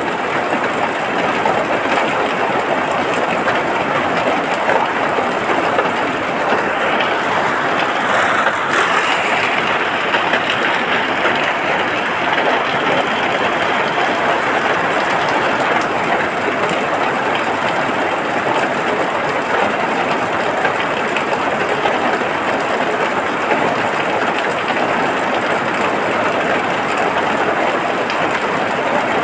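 Rain falling steadily: a dense, even hiss.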